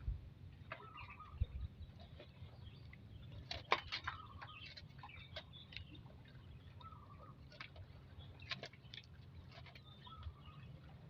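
Faint outdoor ambience: scattered short chirps and sharp clicks over a low steady rumble, with a small cluster of clicks about four seconds in and again near eight and a half seconds.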